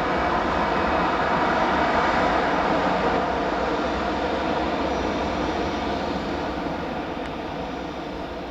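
Airliner passing close by, its engine noise peaking about two seconds in and then slowly fading as it moves away.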